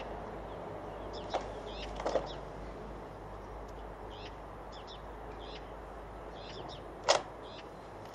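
Outdoor ambience with small birds chirping now and then, and a few sharp clicks, the loudest about seven seconds in.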